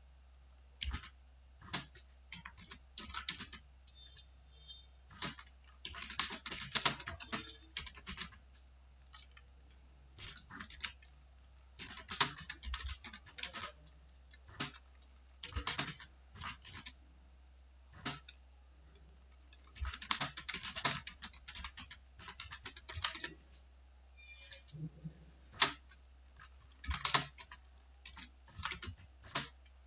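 Typing on a computer keyboard: irregular runs of key clicks in short bursts with brief pauses between them.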